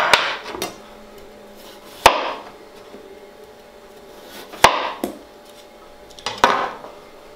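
A chef's knife slicing through a raw peeled potato and knocking onto a plastic cutting board, a few sharp chops a couple of seconds apart. This is the flat base being cut off each end of the potato.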